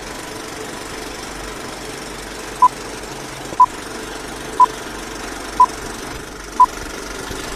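Film-countdown sound effect: a steady old movie-projector clatter, with a short single-pitch beep once a second from about two and a half seconds in, one beep for each number counting down.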